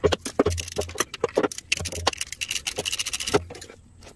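Socket ratchet clicking rapidly as it backs out a fuel pump mounting bolt, with metal knocks from the tool; the clicking stops about three and a half seconds in.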